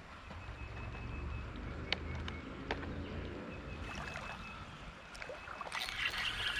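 Shallow creek water moving and trickling, with a few light clicks, then louder splashing near the end.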